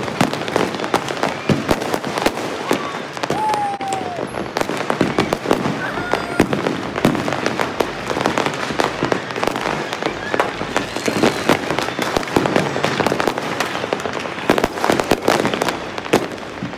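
Fireworks and firecrackers going off all over a city at once: a dense, unbroken crackle of many sharp bangs.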